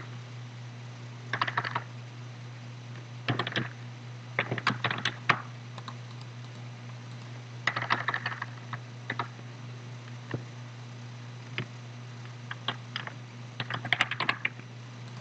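Typing on a computer keyboard: short runs of keystrokes, a handful at a time, with pauses of a second or more between them, over a steady low hum.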